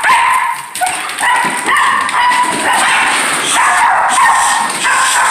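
An excited dog whining and yipping in a rapid string of short, high-pitched cries.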